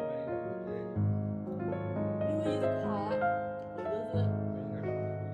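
Background music led by piano, with held notes and a deep bass note coming in about a second in and again about four seconds in.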